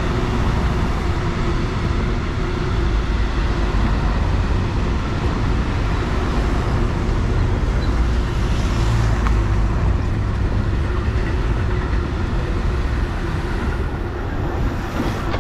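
Motor vehicles driving past at close range out of a tunnel, race support cars and an ambulance van, heard as a steady rumble of engines and tyres that swells a little about eight seconds in as the ambulance passes.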